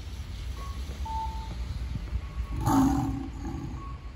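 Animatronic dinosaur statue's recorded roar from its loudspeaker, one call lasting under a second, about two and a half seconds in. Short high electronic beeps repeat over a steady low rumble.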